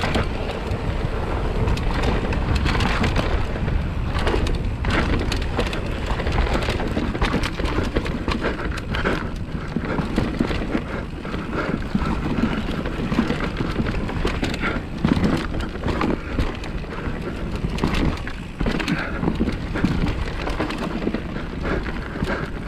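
Electric mountain bike riding down a dirt singletrack: tyres rolling over the bumpy trail with frequent knocks and rattles from the bike, under a steady rumble of wind on the action camera's microphone.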